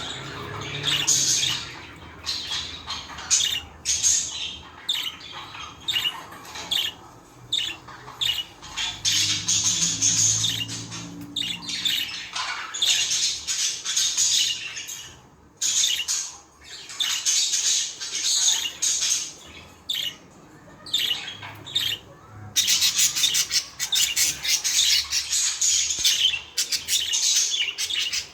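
Budgerigars chattering and chirping in a rapid stream of short, high calls, busiest near the end.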